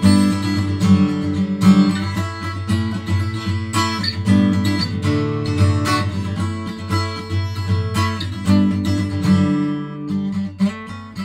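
Background music led by strummed acoustic guitar, its low notes dropping out and the music getting quieter near the end.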